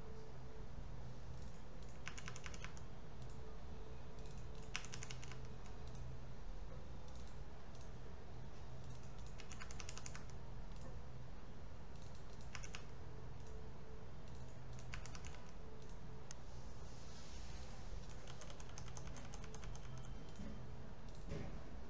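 Short bursts of computer keyboard and mouse clicks every few seconds, coming thicker near the end, over a steady low hum.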